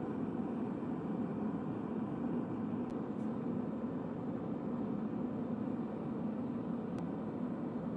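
Two-burner gas forge running with a steady rushing burner noise while it heats a blade for the quench, with a few faint ticks.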